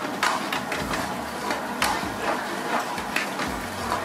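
Metal ladle scraping and knocking against a steel pan, irregularly two or three times a second, as a thick fish gravy is stirred, over a steady hiss.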